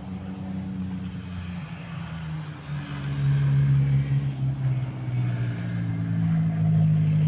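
An engine running steadily with a low hum, growing louder and a little higher about three seconds in.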